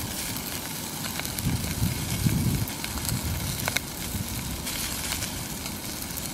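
Steak sizzling and spitting in a small frying pan, lots of small crackles over a steady hiss, with the Coleman FyrePower gas canister stove's burner running underneath as a low rumble.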